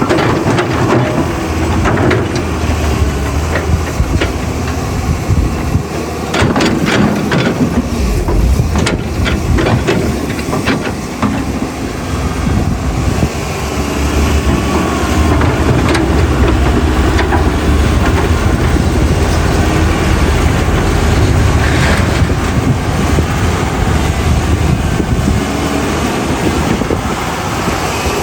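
Caterpillar 320C excavator's diesel engine running steadily, with a cluster of knocks and clanks between about six and eleven seconds in.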